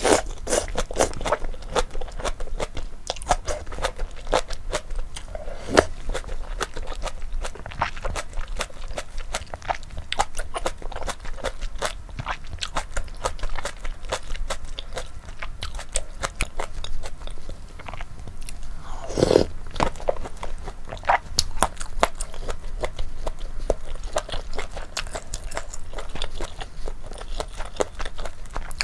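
Close-miked chewing and crunching of a mouthful of malatang with flat sweet potato starch noodles: dense, irregular wet mouth clicks and crunches, with one louder, deeper mouth sound about two-thirds of the way through.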